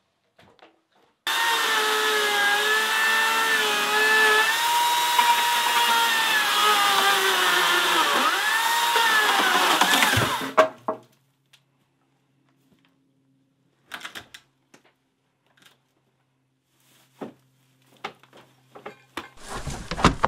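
A motorised power tool runs loud and steady for about nine seconds. Its pitch dips sharply under load near the end, then it winds down and stops. A few scattered knocks and a clatter follow.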